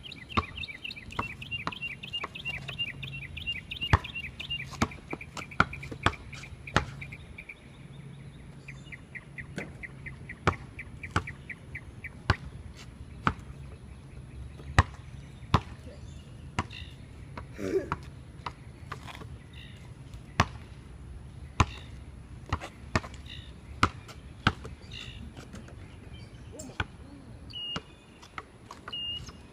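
A basketball bouncing on an outdoor concrete court as it is dribbled: sharp, irregular bounces about once a second. A bird's rapid high trill runs through the first ten seconds or so.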